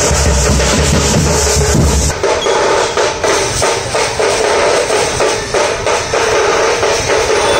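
Street drum band playing a dense, fast rhythm on slung double-headed drums. A deep booming bass layer cuts off suddenly about two seconds in, leaving the sharper drum strokes.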